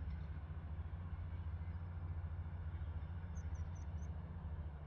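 Low, steady rumble of airliner jet engines around the runway, with four short high chirps about three and a half seconds in.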